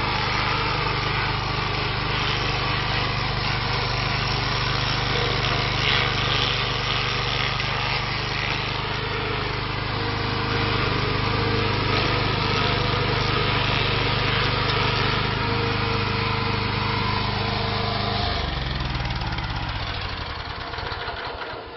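Austter SGR1500 stump grinder's 15 hp engine running steadily at speed as its cutting wheel grinds into a tree stump. About eighteen seconds in, the engine's pitch falls and the sound dies away.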